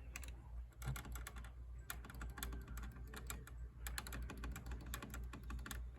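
Typing on a computer keyboard: several quick runs of key clicks, over a steady low hum.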